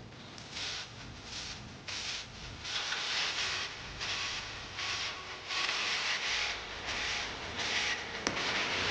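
A series of rasping strokes, roughly one a second, growing louder.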